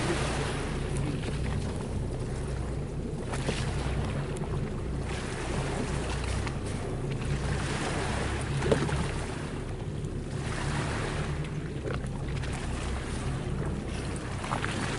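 A small boat's engine idling with a low, steady hum, under the wash of water against the hull and wind on the microphone. One short sharp sound stands out about nine seconds in.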